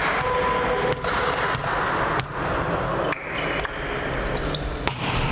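Volleyball rally in a sports hall: the ball is struck several times, each hit a sharp slap that echoes in the hall, over a steady background din. Short high squeaks, like sports shoes on the court floor, come near the end.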